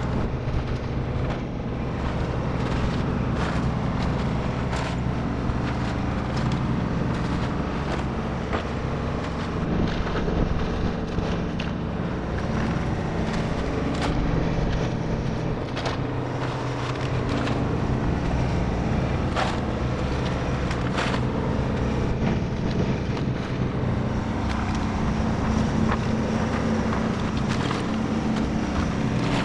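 Takeuchi TB2150 excavator's diesel engine running steadily under working load, with frequent sharp cracks and clunks of wood and debris as the bucket and thumb grab and pile the demolished house's lumber.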